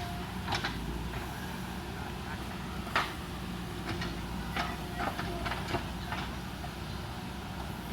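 JCB backhoe loader's diesel engine running steadily under load, with a few short, sharp clacks scattered through it, loudest about three seconds in.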